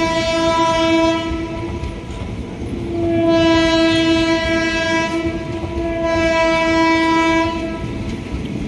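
Train horn sounding in steady single-pitched blasts: one ends about two seconds in, and a longer one runs from about three seconds to near the end, weakening briefly midway. Under it runs the steady rumble and clatter of passenger coaches rolling past.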